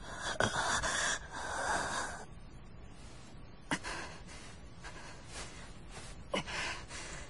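A young man panting heavily and gasping for air, out of breath from exhaustion. Two long, loud breaths come first, then after a short pause a run of quicker, shorter breaths.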